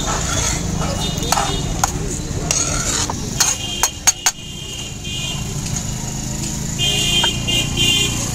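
Steel ladle clinking against a serving plate now and then, the sharpest clinks about four seconds in. Under it runs the steady hubbub of a busy street market, with crowd chatter, passing vehicles and short high beeps.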